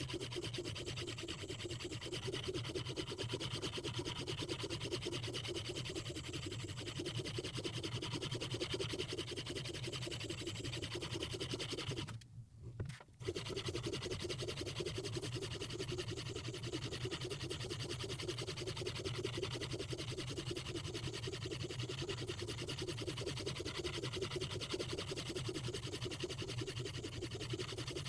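Fine 4000-grit semi-natural quartz sharpening stone on a Hapstone RS guided sharpener rubbing back and forth along a Mora Bahco knife's steel edge in rapid strokes: the finishing stage of sharpening. The stroking stops for about a second roughly twelve seconds in, then carries on.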